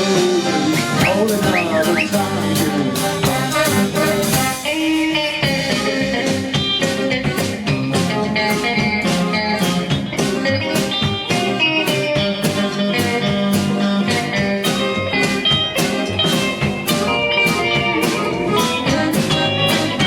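Band playing an instrumental break with guitar and drums, without vocals, in a bluesy rock style.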